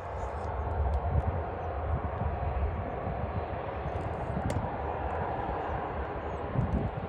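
Jet airliner's engines, a steady rushing noise over a low rumble.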